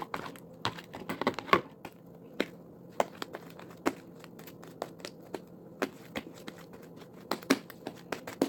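Sticky glue-and-shaving-foam slime being kneaded and pulled in the hands, making irregular wet clicks and small pops, a few a second.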